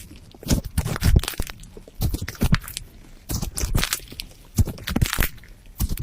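Slime being squeezed and pressed by hand, giving irregular crackling, popping clicks.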